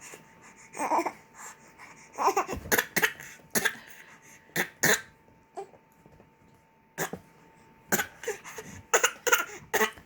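A baby fake-coughing: short, sharp put-on coughs in clusters of two or three, repeated several times with pauses between, a playful imitation rather than a sign of illness.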